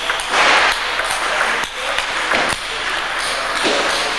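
Table tennis ball clicking off rubber bats and the table in a rally, sharp irregular clicks a couple of times a second over a steady background hiss.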